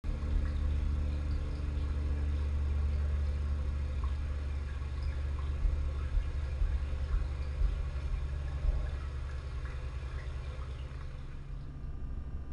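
A steady low hum with a few faint clicks, easing slightly near the end.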